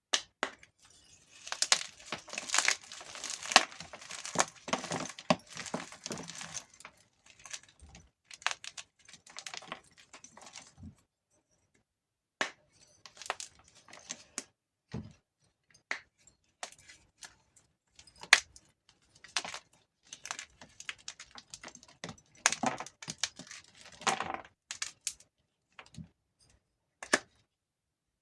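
Gym chalk crushed between the fingers: crispy crunching and crackling in dense spells, with sparser single snaps and short pauses between them.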